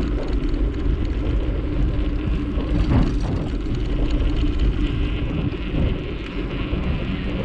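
Wind buffeting the microphone of a moving bicycle, a steady low rumble with rolling noise.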